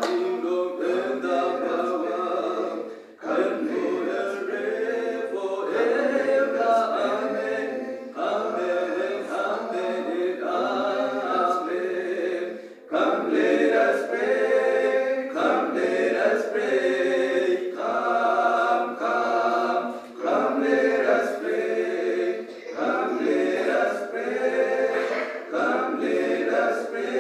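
Choir singing a cappella, several voices together in sung phrases with short breaks between them, the clearest about three and thirteen seconds in.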